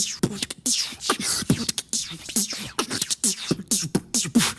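Beatboxing: a fast run of mouth-made percussion, about four or five hits a second. Deep kick-like thuds that drop quickly in pitch alternate with hissy snare and hi-hat sounds.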